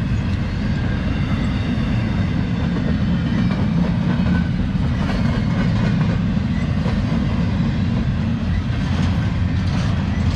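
Freight cars of a passing CSX freight train rolling by: a steady low rumble of steel wheels on rail, with faint clicks of wheels over rail joints.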